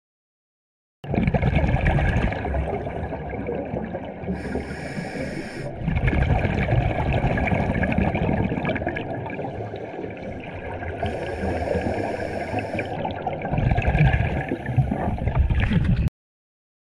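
Rushing, bubbling water that starts and stops abruptly, with three brief hissing bursts in it: about a third of the way in, again past halfway, and near the end.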